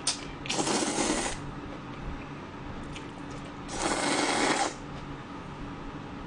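Two long slurps of cold naengmyeon noodles drawn into the mouth from chopsticks, each about a second long, one just after the start and one about four seconds in.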